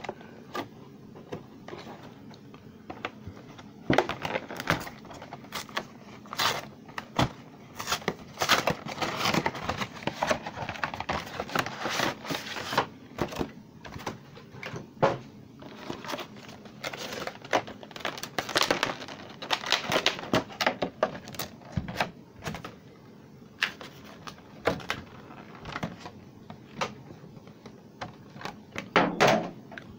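Cardboard Pokémon TCG V box being opened and its plastic packaging handled: irregular crinkling, rustling and clicking of cardboard and plastic.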